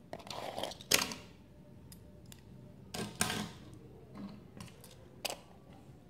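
Handling noises as toy cars are lifted off and set down on a paper sheet. There are rustling scrapes and knocks about a second in and again around three seconds in, and a single sharp tap a little after five seconds.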